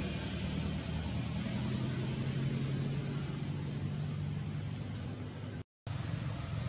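Motor vehicle engine running nearby, a steady low hum. The sound cuts out completely for a moment near the end.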